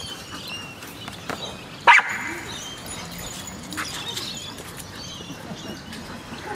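A dog gives one short, sharp bark about two seconds in.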